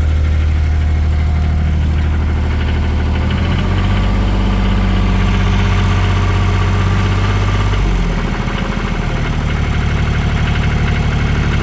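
Bobcat 116 excavator's diesel engine running shortly after a cold start, still warming up. Its note changes about three and a half seconds in, then dips briefly around eight seconds before steadying again.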